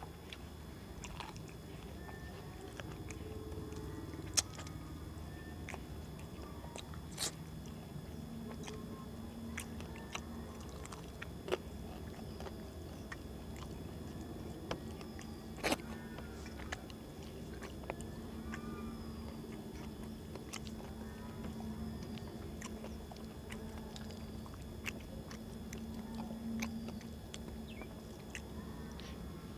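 Chewing, and rice being mixed by hand on a stainless steel plate, with a few sharp clicks of fingers against the steel scattered through. A faint steady hum comes in about eight seconds in.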